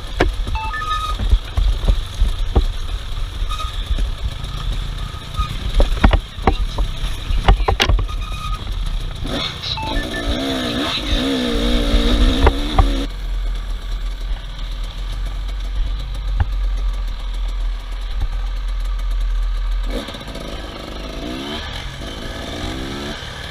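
Off-road vehicle engine running and revving up and down as it works over rough ground, with heavy low rumble and scattered knocks.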